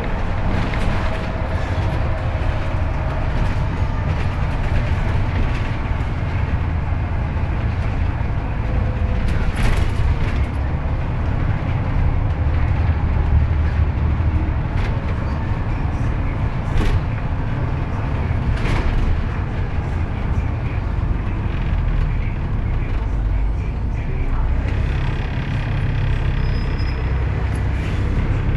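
Dennis Trident double-decker bus heard from inside while under way: a steady low rumble of the engine and drivetrain with road noise, and a few sharp knocks and rattles from the body. Near the end a faint higher whine joins in.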